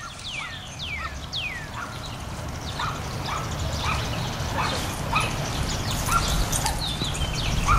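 Dog whining, a string of short high-pitched whines that each slide down in pitch, about one every second.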